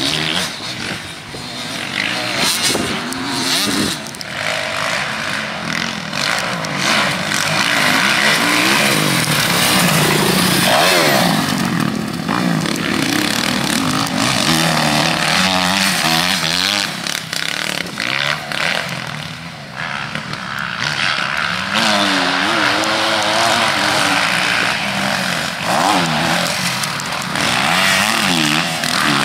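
Motocross bike engine ridden hard, revving up and dropping back over and over through the gears, with a constant rush of noise over it.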